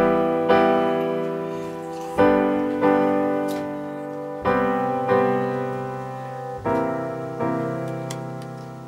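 Background music on piano: slow sustained chords struck in pairs, a new pair about every two seconds, each left to ring and fade.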